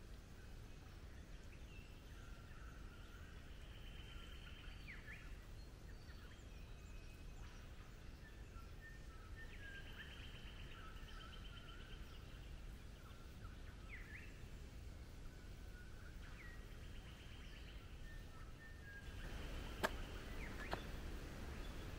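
Faint birds calling: scattered short trills and down-slurred notes from several birds over a low steady rumble. Near the end the background grows louder and there are two sharp clicks.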